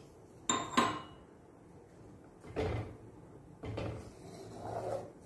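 Two sharp, ringing clinks about half a second in, then a wooden spatula stirring and scraping through watery coconut curry in a clay pot in a few separate strokes.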